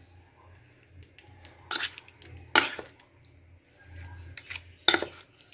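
A steel spoon clinking against a steel bowl while turning fish pieces coated in mustard paste: three sharp clinks with soft mixing between them.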